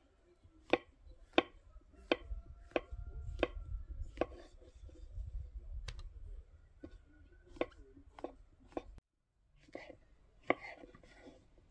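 Kitchen knife slicing brown mushrooms on a wooden cutting board: sharp knocks of the blade hitting the board, one or two a second, with a short gap before the slicing picks up again near the end.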